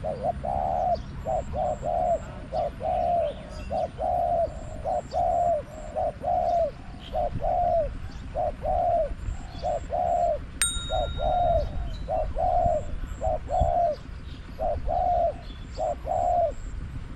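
Spotted doves cooing in a steady run of short, falling coos, one to two a second: a hoarse-voiced wild dove answering the caged decoy bird. A single sharp click sounds about ten seconds in.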